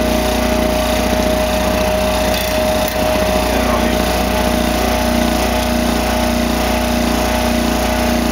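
Electric scroll saw running steadily, its reciprocating blade cutting a small piece of thin wood.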